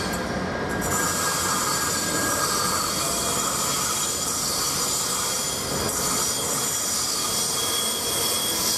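Trenitalia E402A electric locomotive and its InterCity coaches rolling slowly through a station. Steady running noise with a high squeal held throughout.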